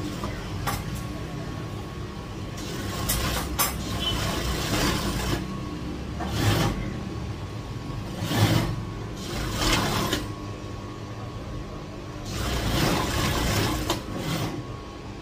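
Industrial sewing machine stitching a folded sleeve hem in several short runs, with a steady low motor hum in between.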